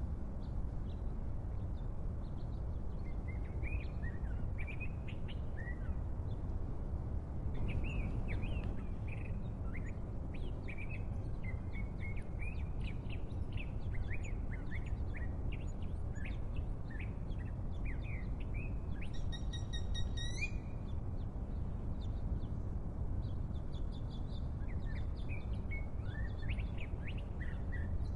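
Birds chirping on and off over a steady low background rumble, with one longer, held call about two-thirds of the way through.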